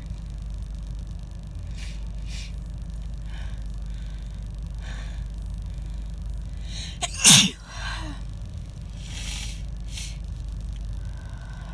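A woman with a chest cold sneezes once, loudly and harshly, about seven seconds in, after several sharp intakes of breath, with more breaths after it. A steady low hum runs underneath.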